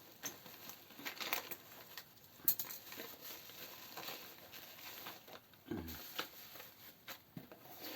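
A parcel's packaging being handled and opened by hand: irregular crinkling and rustling with scattered small clicks, one sharper click about two and a half seconds in.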